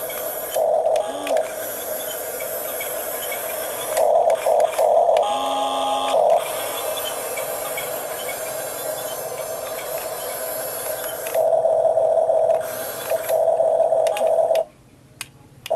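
Huina 1569 radio-controlled toy bulldozer's electric drive motors and gearboxes whining at a steady pitch, growing louder in several stretches as the machine drives and works, then cutting out briefly near the end.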